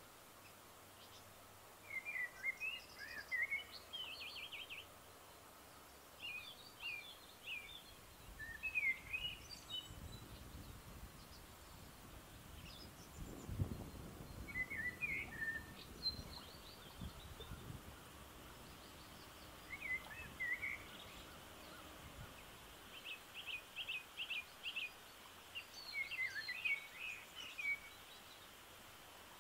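Wild songbirds singing in short chirping phrases, one after another, over a faint steady outdoor hiss, with a run of quick repeated notes near the end. A low rumble rises and fades in the middle.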